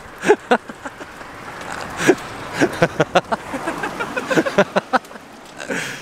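Two men laughing in short, broken bursts, over a steady rush of wind on the microphone.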